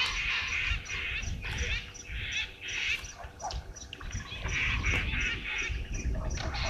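Wild birds calling: repeated harsh calls over a regular high ticking note about three times a second, with a low rumble underneath.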